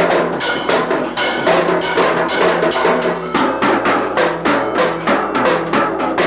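Drum kit being played in a fast, steady rhythm of several strokes a second.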